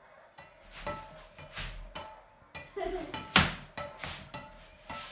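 Rolled-up pair of socks bouncing off a frying pan: a series of short, irregular knocks, about one every half-second to second, the loudest a little past the middle.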